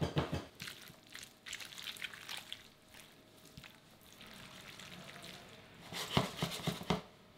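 Pasta being stirred through a creamy sauce in a stainless steel frying pan: wet, sticky stirring sounds with small scrapes and clicks of the utensil on the pan. A louder cluster of clinks comes about six seconds in.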